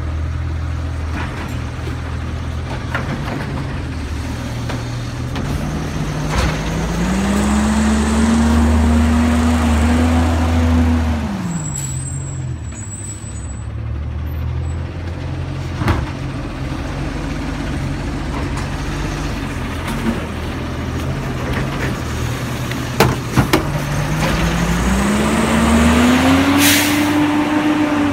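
Autocar garbage truck's diesel engine idling, then revving up and holding a higher pitch for several seconds before dropping back, twice, as the engine drives the automated side-loader arm's hydraulics. A few sharp knocks come through about two-thirds of the way in, and there is a short burst of air hiss near the end.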